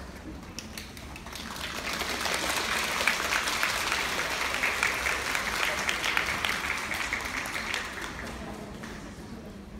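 Audience clapping: a crowd's applause that swells after about a second, holds, and dies away near the end.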